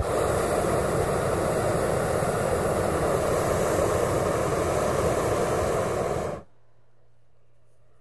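Hot-air balloon propane burners firing in one long, loud blast that starts abruptly and cuts off after about six seconds, leaving the faint steady hiss of the pilot light.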